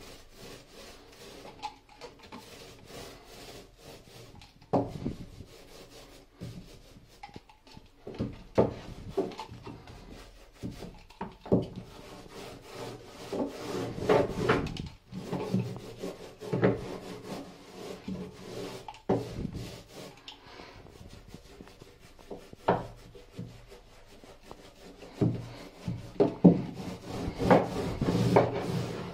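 Paintbrush strokes brushing varnish onto wooden slats: bristles rubbing and swishing over the wood in irregular strokes, with an occasional sharper knock.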